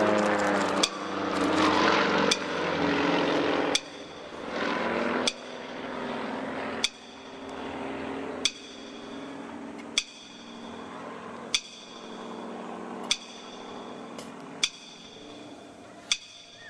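Propeller engine of an aerobatic plane passing, its pitch dropping slightly as it goes by, then fading after a few seconds. Through it run slow, evenly spaced ringing strikes about every one and a half seconds, like bell or chime notes in the routine's accompanying music.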